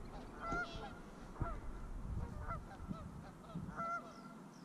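Geese honking: a string of short, clipped honks, roughly one a second.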